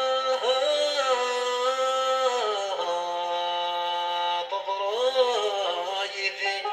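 Music: a melody of long held notes that slide from one pitch to the next, with a heavily processed lead.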